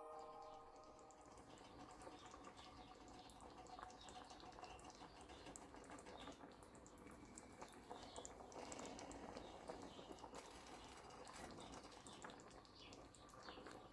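Faint, irregular small pops and crackles of a tomato-sauce fish stew simmering in a metal pan.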